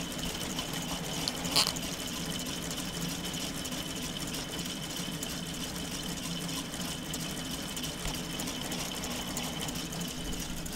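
K'Nex model V8 engine running under battery power: its small electric drive motor whirring steadily with a faint high whine while the plastic pistons, camshafts and gears turn. One brief click about one and a half seconds in.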